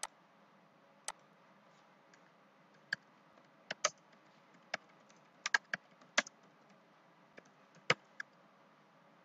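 Keystrokes on a computer keyboard: a dozen or so sharp, unevenly spaced clicks, some in quick pairs, as a short line of text is typed.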